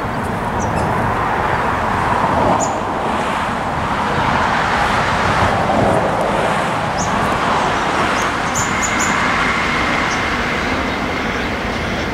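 Steady rushing rumble of distant vehicles, with birds chirping. A thin, steady high whine comes in about two-thirds of the way through.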